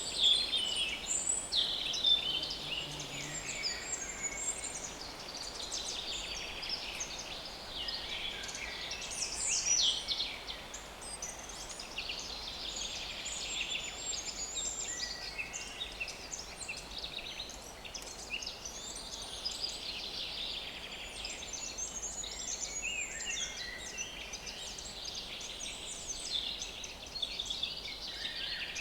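A chorus of small woodland songbirds singing at once, with many overlapping chirps and trills.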